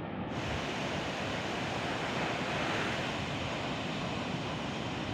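Heavy sea surf breaking and washing on the beach, a steady rushing noise that swells about two to three seconds in, with wind buffeting the microphone.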